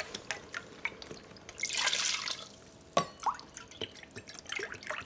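Chicken broth pouring from a carton into a stainless steel measuring cup, with scattered drips and a louder splashing pour about two seconds in.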